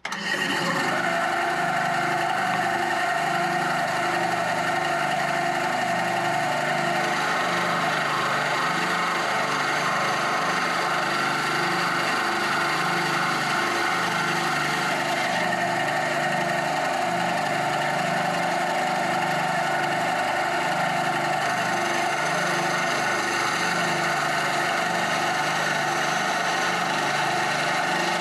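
Bandsaw running steadily while cutting a Christmas-tree shape out of African mahogany.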